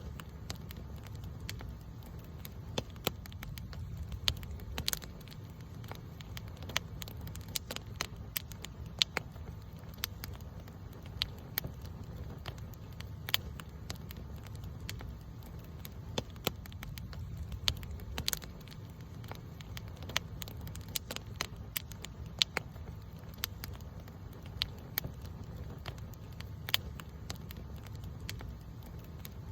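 Wood campfire burning: a steady low flutter of flames under frequent sharp, irregular crackles and pops.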